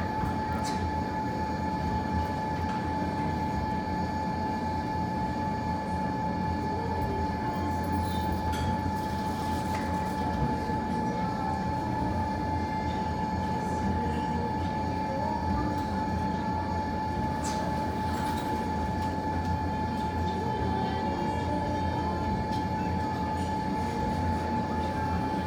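A steady low rumble with a constant high whine, a machine-like drone that does not change, with a few faint crackles from the fireplace fire.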